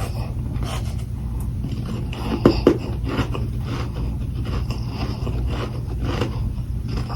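Close-miked chewing of powdery humidifier freezer frost: a steady run of soft, crackly crunches, with two louder crunches about two and a half seconds in, over a steady low hum.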